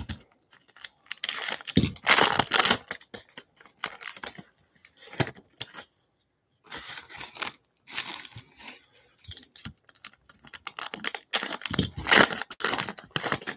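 Foil trading card pack wrappers being torn open and crinkled, in a run of short tearing and rustling bursts broken by brief pauses.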